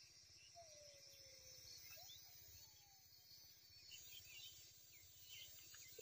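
Near silence: faint outdoor ambience with a steady high hiss and a few distant bird chirps, including one falling whistle about half a second in.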